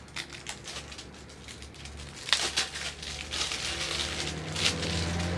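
Plastic packaging crinkling and crackling in irregular rustles as it is handled and pulled off a small boxed microphone. A low steady hum rises in the background near the end.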